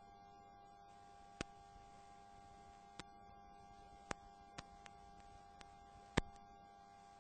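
Faint steady hum with a handful of sharp, irregular clicks, the loudest a little after six seconds in: the background noise of a near-silent recording.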